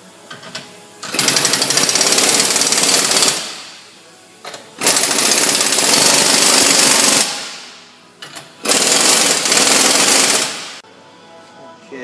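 Pneumatic impact wrench hammering in three bursts of about two seconds each, running down the threaded rods of a coil-spring compressor to release the spring on a front strut assembly.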